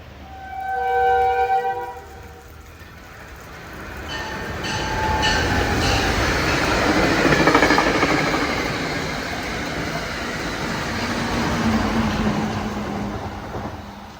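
Metro-North passenger train led by a Siemens SC42-DM diesel locomotive: one short blast of its chord horn, then the train rumbling past with the wheels clacking on the rails, rising to a peak about halfway through and fading near the end.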